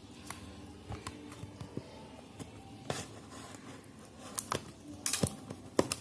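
Fingers picking and scratching at the seal on a speaker's packaging box: scattered light clicks and scrapes, with a louder scraping flurry about five seconds in and another near the end.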